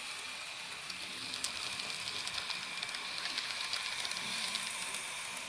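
N gauge DCC model locomotive running on the track: a steady high motor whine with faint, irregular clicking.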